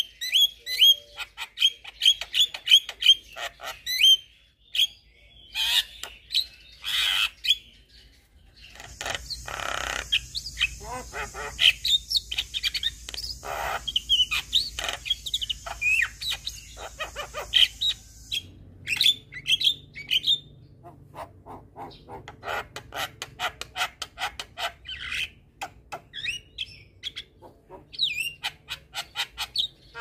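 Javan myna chattering: rapid runs of short whistled notes mixed with harsh, rasping calls, with a steady hiss behind them for several seconds in the middle.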